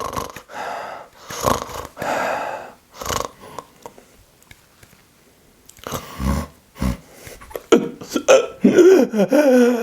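A man's voice imitating a sleeper's obstructive sleep apnea: snoring breaths, then about two seconds of silence while the airway is blocked, then a few short heavy breaths and a drawn-out gasping groan as it reopens.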